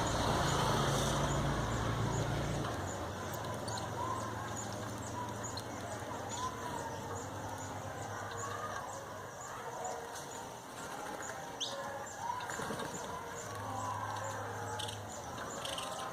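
Birds calling outdoors: a high short note repeated steadily about twice a second, with lower curving calls in between. Under them runs a low hum that drops away after about two and a half seconds and returns briefly later.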